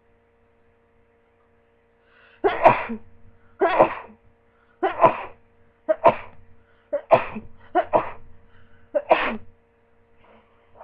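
A person sneezing from a head cold in a rapid run of about seven sneezes, roughly one a second, starting a couple of seconds in.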